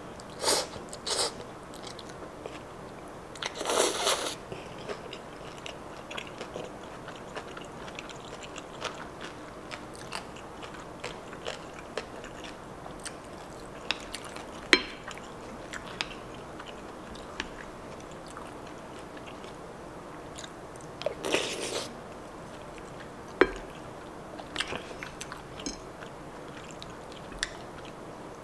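Close-miked eating: a few long slurps of pasta and spicy seafood stew, with chewing and many short sharp clicks of a wooden spoon against a ceramic bowl between them.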